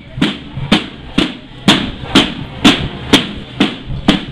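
Marching band drums beating a steady march cadence, about two strokes a second, each stroke with a deep thud.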